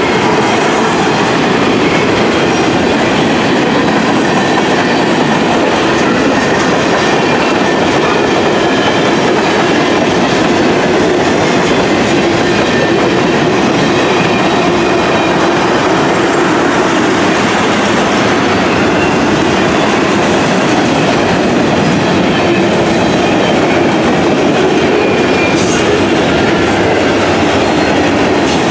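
Freight train cars rolling past, a loud, steady clatter of steel wheels on the rails.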